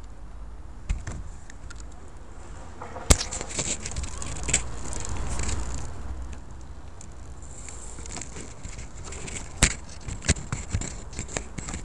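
Onboard sound of an Ansmann SC4 radio-control short-course truck being driven hard over gravel: a steady rumble and rattle, a sharp knock about three seconds in, then a run of sharp knocks and clatter near the end as the truck jumps and tumbles.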